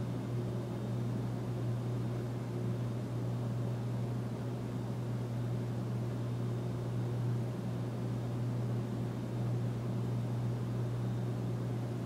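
A steady low hum with a haze of hiss over it, unchanging throughout: background room noise, such as an appliance or fan.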